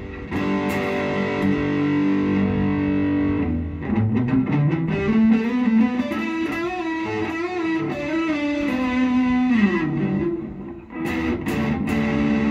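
Red SG-style electric guitar being played plugged in, tried out now that it is finished. Held chords give way in the middle to a lead line with string bends that slide up and down in pitch. A brief drop-out a little before the end is followed by ringing chords.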